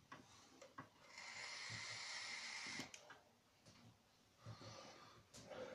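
Faint long breath out as a large cloud of e-cigarette vapour is exhaled, starting about a second in and lasting nearly two seconds, with a few small clicks before it and softer breaths near the end.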